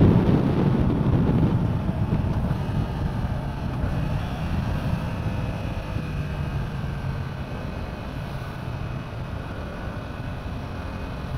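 Riding on a Yamaha R7, its 689 cc parallel-twin engine running under wind rush on the camera microphone. The wind noise is heavy at first and eases over about two seconds, leaving a steadier, quieter engine sound.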